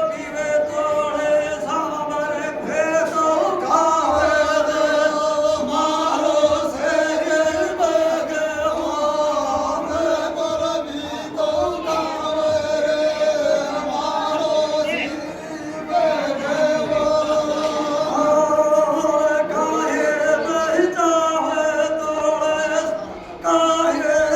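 Male voices singing a Hindi devotional folk song in a chant-like chorus, with long held sung notes.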